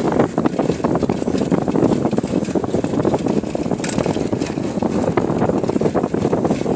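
Wind buffeting the microphone of a handlebar-mounted phone on a moving bicycle: a loud, unsteady rushing. About four seconds in there is one short knock as a hand touches the phone.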